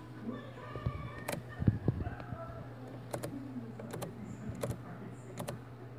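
Handling noise from a phone held close inside a car: scattered sharp clicks and taps over a faint steady low hum, with a couple of louder dull knocks just under two seconds in.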